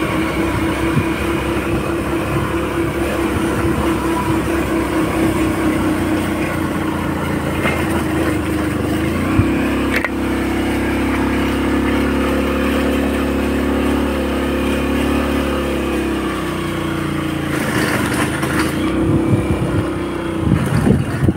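Motorcycle engine running steadily while riding along. Its note changes about halfway through, taking on a heavier, lower drone for several seconds, then settles back to its earlier pitch.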